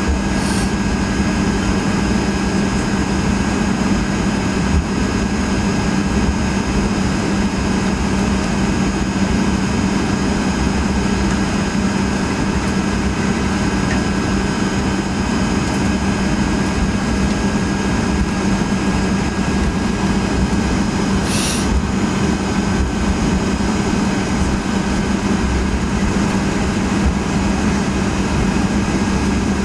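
Cabin noise of a Boeing 757-200 taxiing with its Pratt & Whitney PW2037 engines at idle: a steady hum over a low rumble, with faint high whines. A brief hiss about two-thirds of the way through.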